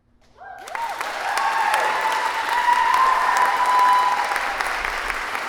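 Audience applause breaking out suddenly about half a second in, after near silence, with high cheering and whooping voices held over the clapping.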